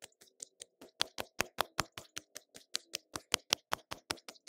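Fingertips lightly and rapidly tapping the cheeks and jawline, a quick even patter of about five soft taps a second.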